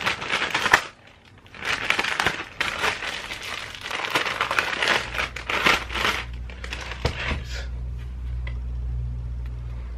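A parcel's mailing bag being torn open and crinkled by hand, in rustling bursts over the first six seconds. After that a low steady hum is left.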